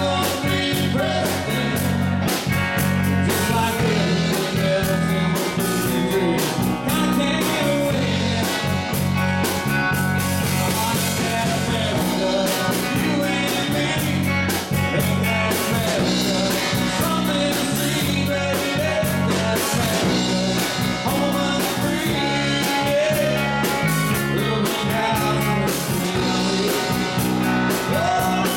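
Live rock band playing electric guitars and an electric bass guitar through amplifiers, with a steady beat.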